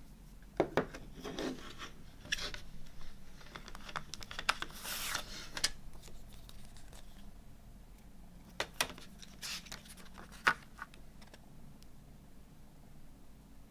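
A CD album's packaging handled by hand: scattered sharp clicks and taps between stretches of rubbing and scraping, the longest scrape about five seconds in. The handling dies down for the last few seconds.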